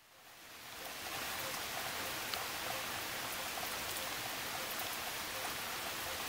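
Steady hiss of rain falling outdoors, with small scattered drips. It fades in over the first second.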